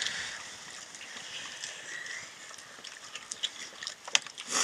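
People eating by hand from steel plates: chewing and lip-smacking, with a few sharp clicks near the end.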